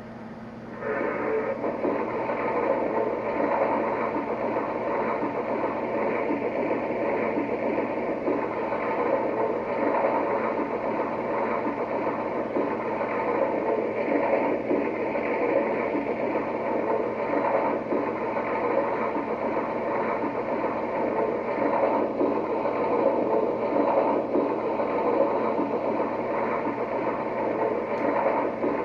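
QSI QS-3000 sound system in an O-scale model steam locomotive playing its fuel-loading effect through the locomotive's small speaker: a steady sound of coal being loaded into the tender, starting about a second in, over a faint low hum.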